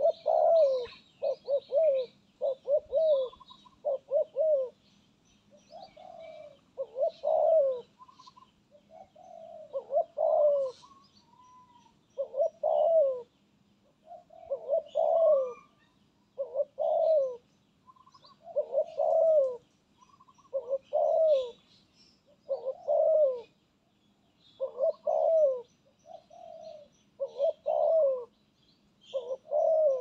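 Spotted doves cooing, a short phrase repeated about every two seconds, with faint high chirps behind.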